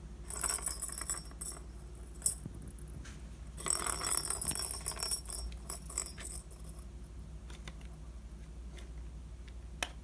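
Small ball rattling as it rolls around the plastic tracks of a tiered cat track toy, in two bursts: a short one near the start and a longer one of about three seconds a little before the middle. A single sharp click comes near the end.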